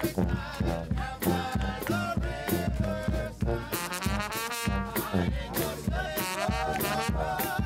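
Upbeat band music with horns playing a wavering melody over a steady beat.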